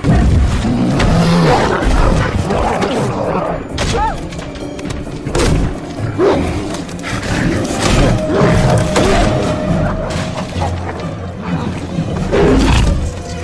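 Film fight-scene soundtrack: orchestral score over heavy booming impacts and thuds, with creature growls and snarls from the Hulk and the mutant dogs.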